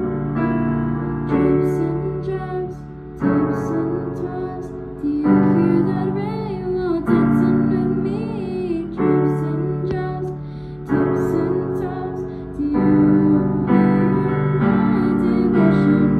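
Digital piano playing slow sustained chords, a new chord about every two seconds, with a girl singing along over them.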